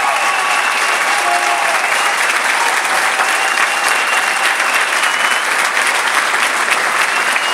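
Large audience applauding steadily after a choral piece, with a few high calls rising above the clapping.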